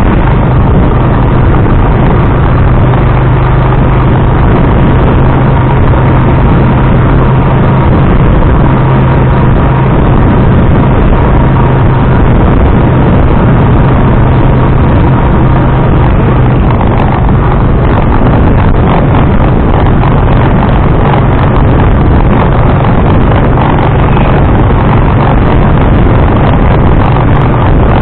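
Motorized tricycle running on the road, heard from a camera riding on it: a loud, dense, steady rumble of engine and vibration noise. A steady low engine hum is strong for most of the time and weakens about two-thirds of the way through.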